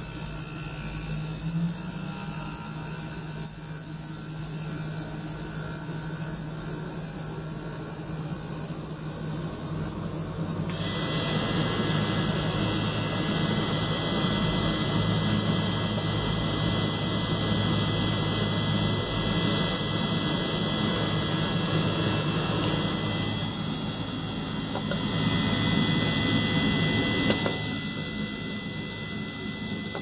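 Ultrasonic cleaning bath and small water-circulation pump running: a steady hum, joined about eleven seconds in by a louder hiss that carries on, briefly brighter a little before the end.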